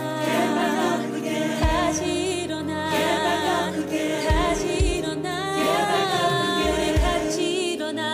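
Contemporary worship song sung by several voices in harmony, with vibrato on the held notes, over sustained instrumental backing and occasional low thumps.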